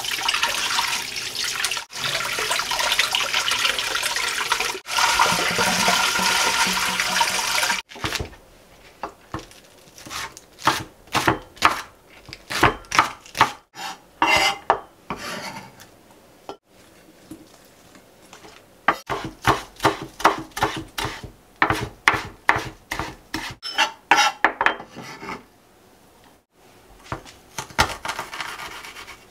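Tap water running over green onions being rinsed in a stainless-steel sink. Then a knife chops green onions on a wooden cutting board in quick spurts of knocks, and near the end a metal garlic press is worked on the board, more softly.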